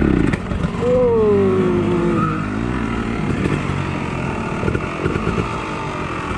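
Dirt bike engine revving: one rev about a second in that rises and then falls away, then running at low revs.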